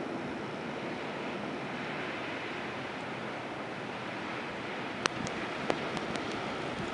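Steady rushing of blizzard wind, with a few sharp clicks in the last two seconds.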